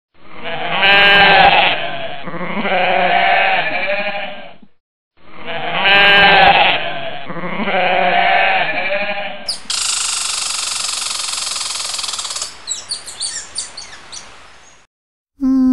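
Sheep bleating in long quavering calls, the same clip heard twice. After that comes a steady hiss that breaks into crackling and popping: mutton cooking in a steaming pot.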